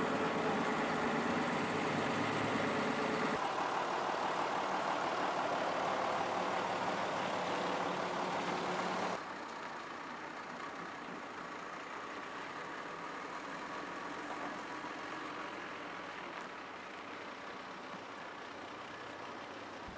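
Heavy truck engine running steadily, loud at first; about nine seconds in the sound drops suddenly to a quieter, steady engine hum.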